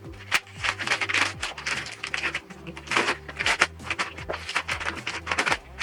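Background music with a steady bass line, under a run of sharp clicks and rustling from gift packaging being handled and opened.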